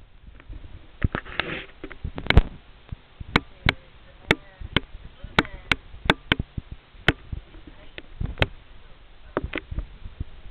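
A teething pit bull puppy chewing a knotted cotton rope toy: irregular sharp clicks and knocks, a few a second, as its jaws work the rope.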